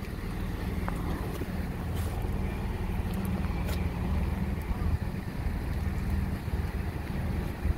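Diesel passenger train's engine running steadily, a low rumble, with wind buffeting the microphone.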